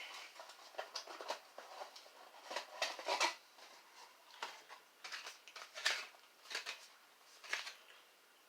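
Packaging being handled and opened by hand: scattered short rustles and clicks, several a second, with brief pauses between them.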